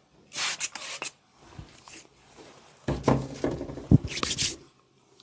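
Hands rubbing over skin and clothing during a massage, in two spells of friction noise, the second with a sharp smack or crack about four seconds in.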